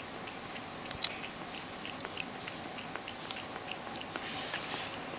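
Ragdoll cat lapping milk from a stainless steel bowl: quick, even wet clicks of the tongue, about three a second, with one louder click about a second in.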